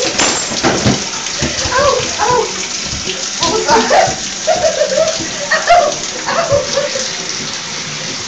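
A kitten meowing repeatedly, about half a dozen short calls that bend up and down in pitch, while being bathed under a steady hiss of running water in a bathtub.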